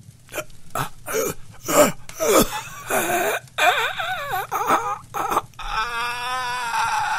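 A man's voice moaning and wailing in pain, in short broken bursts at first, then drawn-out wavering cries, settling into one long held wail near the end.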